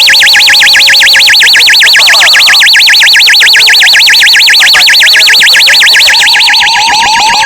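Electronic fire alarm sounding its evacuation tone: a loud, fast warble sweeping up and down. A lower second tone joins in near the end.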